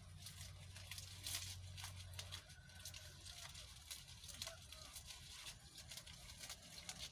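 Faint rustling and crackling of grass and leaves being handled, with scattered soft clicks.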